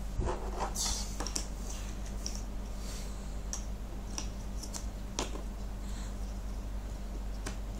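Scattered light clicks and taps of jigsaw puzzle pieces being handled and fitted in, a few of them sharper than the rest.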